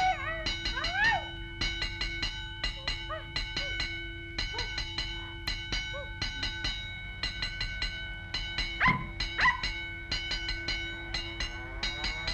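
A cartoon puppy whimpering and yipping in short rising-and-falling cries, loudest twice about nine seconds in, over a cartoon score of repeated ringing notes on a held chord.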